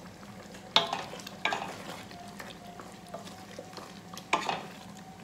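A spoon stirring thick chicken gravy in a stainless steel pot, scraping and knocking against the pot with a few sharp clinks, the loudest about a second in, a second and a half in, and after four seconds.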